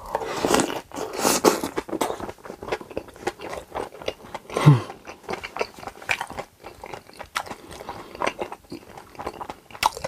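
Close-miked eating: irregular biting and chewing with crunching, the typical sounds of a mukbang. A brief low murmur from the eater about halfway through.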